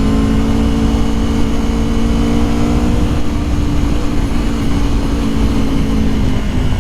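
Aprilia Tuono V4 Factory's 1077 cc V4 engine running at a steady cruise under a rider, its pitch easing down slightly, with low wind rumble.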